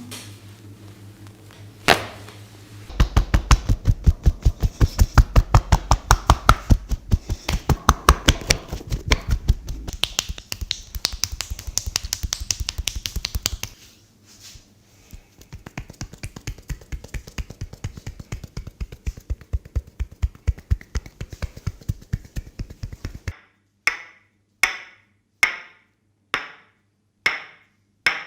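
Rapid, rhythmic percussive massage strokes, about five or six strikes a second: hands tapping and slapping on the body. They fade out and start again softer, then give way to single sharp snaps about a second apart.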